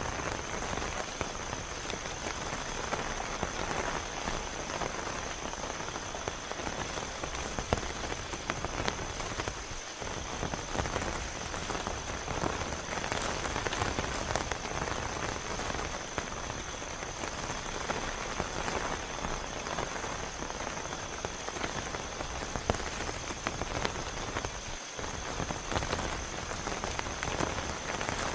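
Heavy rain falling steadily, with a dense patter of individual drops hitting surfaces close by.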